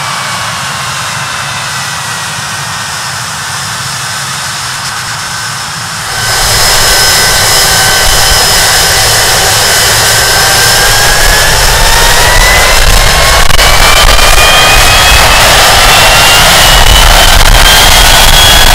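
Rolls-Royce Spey turbofan engines of a Hawker Siddeley Nimrod running on the ground: a loud jet whine of several tones over a deep rumble. For the first six seconds the whine sinks slowly in pitch. The sound then turns abruptly louder, and from about ten seconds the whine climbs steadily in pitch as the engines spool up.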